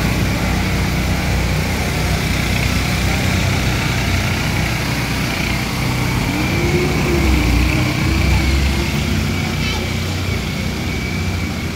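A small engine running steadily, with a constant drone and a thin high whine, under the voices of a walking crowd.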